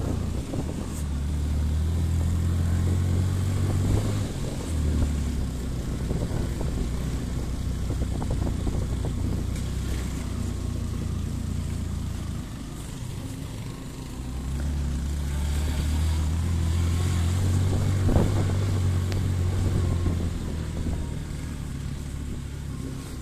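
Motorcycle engine running steadily with the bike underway on a dirt road. The engine eases off about twelve seconds in and picks up again a couple of seconds later, then eases off again near the end, with a single sharp click about eighteen seconds in.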